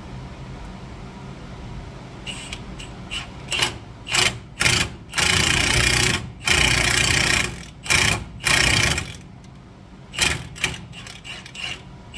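Impact wrench running in about seven short bursts, the longest about a second, tightening a lug nut against a bearing-and-cup stud installer to draw a wheel stud into the hub.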